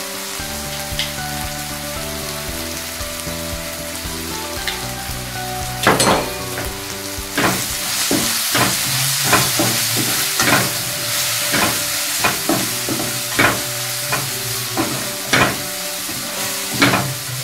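Onion, tomato and spice masala frying in a kadai, stirred and scraped with a spatula: a sizzle that grows louder about seven seconds in, with the spatula knocking against the pan roughly once a second from about six seconds in. Background music with held notes runs underneath.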